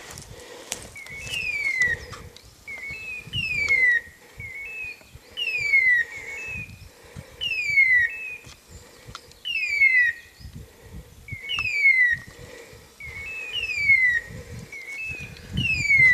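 A hunting dog's electronic beeper collar in point mode: a short chirp and then a falling, whistle-like tone, repeating evenly about every two seconds. The signal tells the hunter the setter is standing still on point. Low thuds of footsteps in the brush sound underneath.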